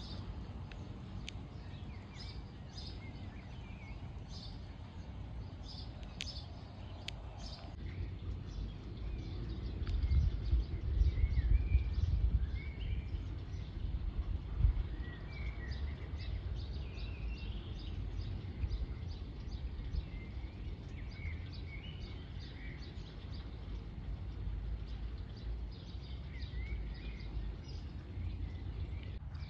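Small birds chirping on and off over a low, gusting rumble of wind on the microphone, which swells loudest about a third of the way in.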